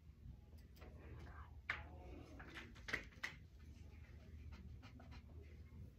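Low steady room hum with a few light taps and clicks of pencils on a table, bunched around the middle.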